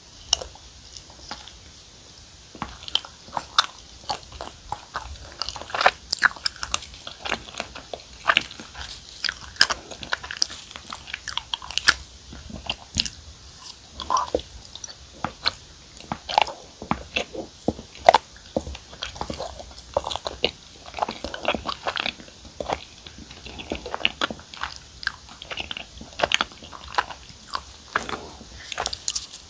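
Close-miked biting and chewing of chewy glutinous rice cakes (chapssaltteok) filled with cream cheese and fruit purée: a bite into the soft cake, then continuous wet, irregular mouth clicks and smacks.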